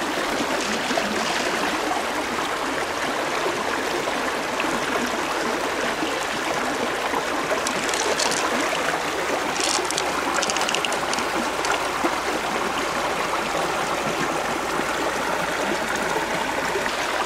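Shallow river water running over stones, a steady rushing and trickling.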